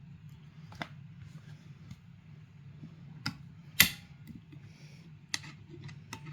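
Omnifixo magnetic metal clip arms clicking and clacking as they are stacked and repositioned: about five separate sharp clicks, the loudest about four seconds in, over a steady low hum.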